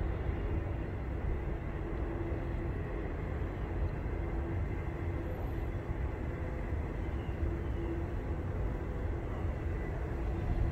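Steady low outdoor background rumble with a few faint high chirps in the second half.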